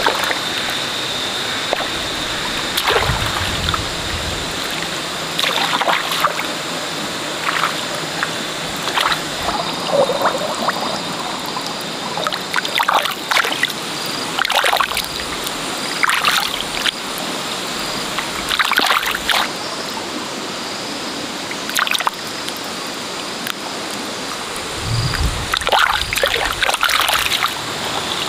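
Hands and feet splashing and sloshing in shallow muddy water while groping through the mud for freshwater mussels: short, irregular splashes every second or two over a steady high-pitched background drone.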